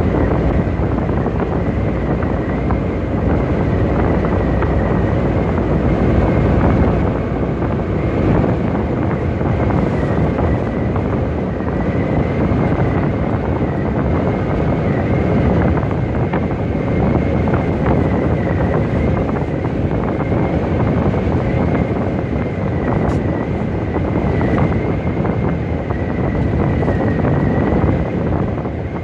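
Inside a semi truck cab at highway cruising speed: a steady drone of engine, tyre and wind noise, with a faint high whine.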